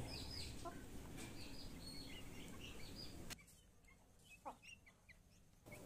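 Faint, scattered peeping of month-old chicks. Just past halfway the background hiss cuts out, leaving a few lone cheeps.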